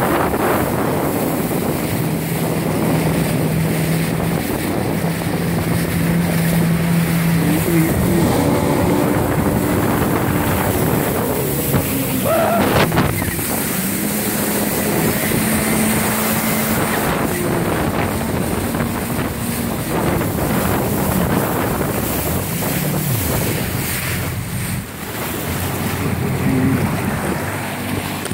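Yamaha WaveRunner FX HO Cruiser four-stroke personal watercraft running under way, its engine note rising and falling with the throttle. Heavy wind noise on the microphone and water spray run along with it.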